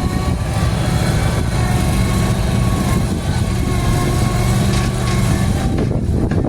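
A farm machine's engine running steadily under load, a loud low rumble with a steady whine over it. A little before the end the whine fades and the sound turns rougher.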